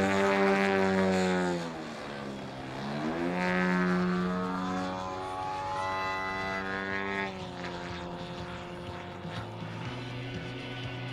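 ZDZ 195 cc engine and propeller of a large-scale model aerobatic plane, a CARF Extra 330LX, running in flight. Its pitch falls about two seconds in and rises again a second later. It shifts and climbs around the middle, then settles lower and steadier for the last few seconds.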